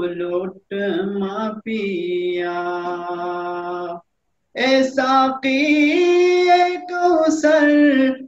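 A man singing a naat unaccompanied, in long drawn-out melodic phrases with held notes. There is a brief pause about four seconds in.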